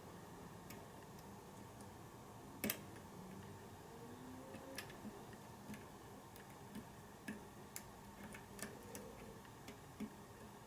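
Faint, irregular metallic clicks of a lock pick and tension wrench working the pins of a pin-tumbler lock cylinder, with one louder click about two and a half seconds in.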